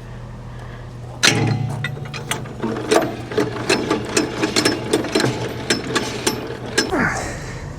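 Rapid, irregular metallic clicking and rattling from a trailer hitch mechanism being worked while the truck is coupled to the log trailer. It starts with a clank about a second in and eases off near the end.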